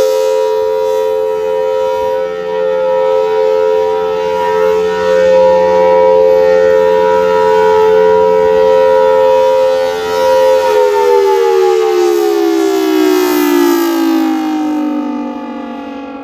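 Federal Signal Thunderbolt 1000T tornado siren sounding its steady alert signal: a loud two-tone chord held at constant pitch. About two thirds of the way through, the pitch starts sliding steadily downward as the siren winds down at the end of the signal.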